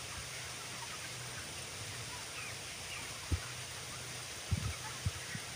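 Steady hiss and hum of a closed-house broiler barn: the ventilation fans running over the faint chatter of a large flock of broiler chickens. A few short low thumps come in the second half.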